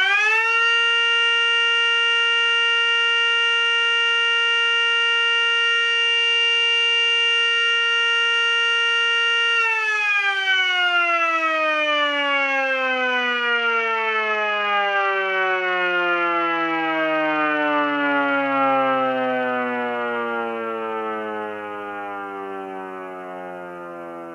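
Mini Sterling Model M miniature siren sounding with its 16-port side toward the microphone: it holds a steady pitch for about nine seconds after winding up, then winds down in a long, slowly falling wail that fades near the end.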